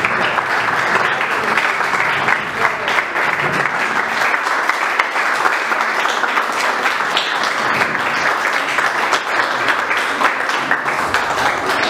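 Steady applause from a small group of people clapping.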